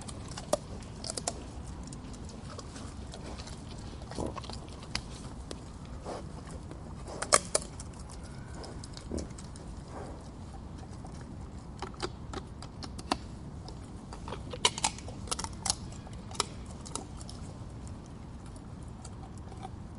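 A boar eating nuts: irregular sharp cracks and crunches as the shells break, some in quick clusters, over a steady low background noise.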